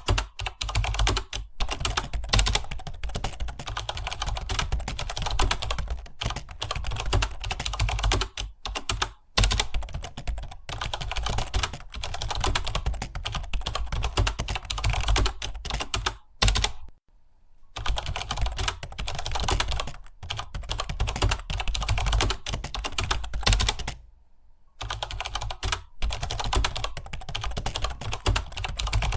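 Computer keyboard being typed on fast and continuously, a dense run of key clicks broken by two short pauses, one about 17 seconds in and one about 24 seconds in.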